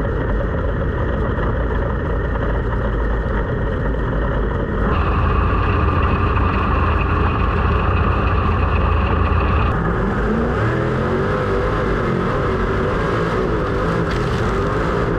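Sprint car engines running at speed on a dirt track. The sound changes abruptly about five and ten seconds in, and the engine pitch rises and falls near the end.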